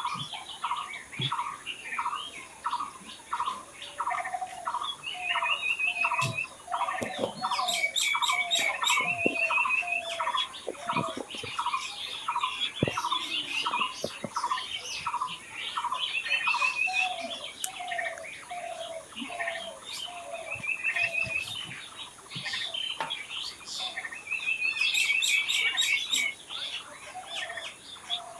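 Several wild birds calling and singing together. A series of short notes repeats about twice a second through the first half, then a lower series takes over. Brief rapid trills and high chirps sound over it.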